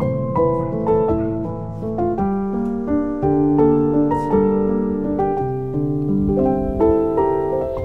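Instrumental background music, with notes sounding several at a time in chords.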